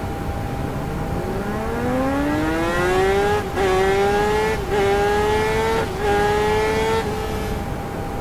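Kawasaki Ninja ZX-10R's inline-four engine through an Akrapovič Evolution Line carbon exhaust, accelerating hard. The note climbs for a couple of seconds, then goes through three quick upshifts, each a short dip in pitch before it climbs again, and falls away near the end.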